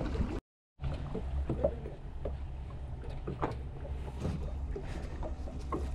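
Fishing boat's engine running low and steady, a low rumble with a few faint knocks on board; the sound drops out briefly just under a second in.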